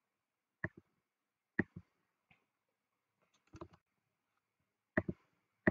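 Computer mouse clicking: about half a dozen short, sharp clicks spaced irregularly, several in quick pairs, with quiet between them.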